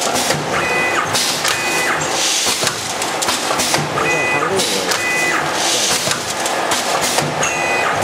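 A four-lane automatic sachet packing machine running through its cycle, with a high hiss coming back about every second and a half to two seconds. Short high tones sound in pairs between the hisses, over a steady mechanical clatter.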